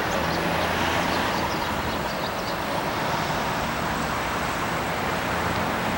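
Electric train running along the track, a steady running noise with a low hum, and a few short high squeaks in the first couple of seconds.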